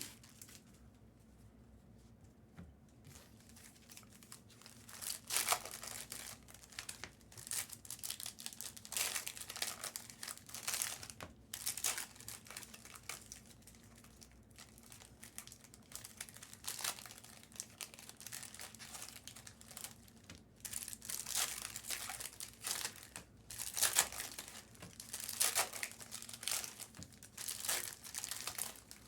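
Card-pack wrappers crinkling off and on as they are handled, in irregular crackly bursts, after a few quiet seconds at the start.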